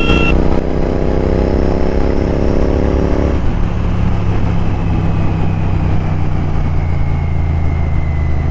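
Royal Enfield Continental GT 650's parallel-twin engine pulling under acceleration, its note rising steadily for about three seconds, then the throttle closes and it settles to a steady lower running note.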